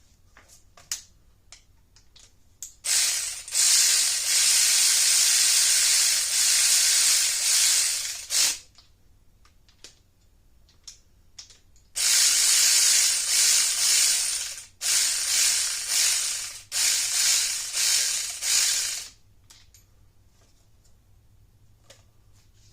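Hand ratchet clicking rapidly as it spins nuts down onto cylinder head studs, bringing them to hand tight. One long run of clicking for about five seconds, then after a pause several shorter runs in a row, with a few single clicks between.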